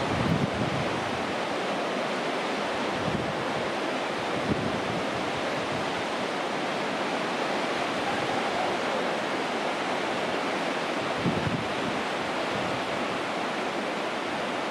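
Sea surf washing on the shore as a steady hiss, with gusts of wind buffeting the microphone now and then.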